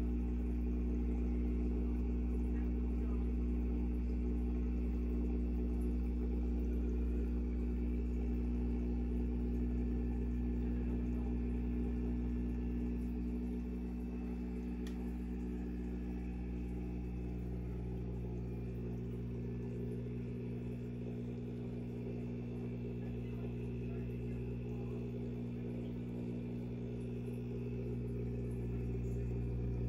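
Aquarium air pump driving a sponge filter, a steady electric buzzing hum made of several low even tones, a little quieter in the middle.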